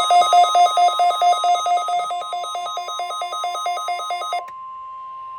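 An electronic alarm alternating rapidly between two pitches, like a trilling phone bell. About four and a half seconds in it stops, leaving NOAA Weather Radio's steady 1050 Hz warning alarm tone, which is being tested.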